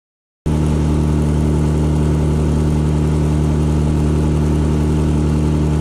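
Boat motor running at a steady speed, cutting in suddenly about half a second in, with a steady low hum over a rushing haze.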